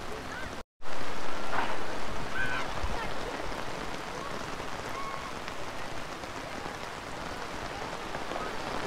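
Heavy rain falling steadily, an even hiss of downpour on wet ground, louder for a couple of seconds after a brief cut-out under a second in. A few faint short high calls sound through it.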